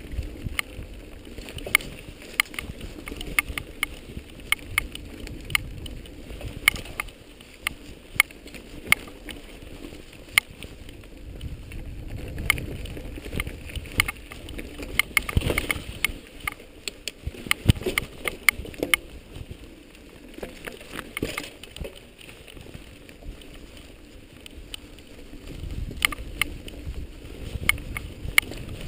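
Irregular sharp clicks and rattles, one or two a second, over a low rumble of wind on the microphone: handling noise from a mounted camera jolting along a dirt trail.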